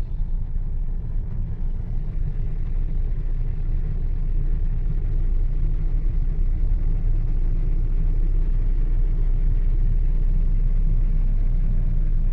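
Suzuki Spacia's 660 cc three-cylinder engine idling, heard from inside the cabin as a steady low rumble.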